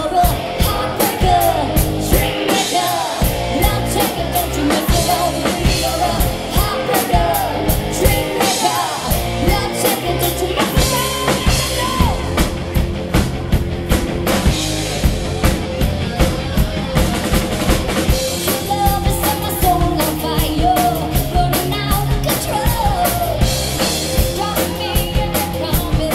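Live rock band playing on stage: a steady drum kit beat under keyboards and a lead vocal.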